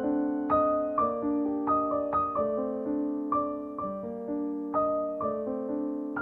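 Background music: a gentle, slow piano melody with soft notes about twice a second.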